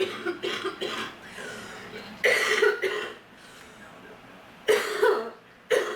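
A person coughing in repeated fits: a run of sharp coughs at the start, then further bouts about two seconds apart, the last one beginning just before the end.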